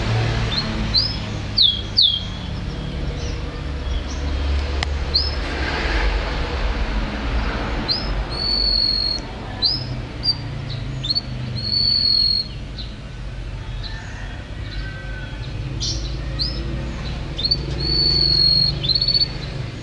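Domestic canary singing: a string of short, rising chirps broken by several held whistled notes, over a low background rumble.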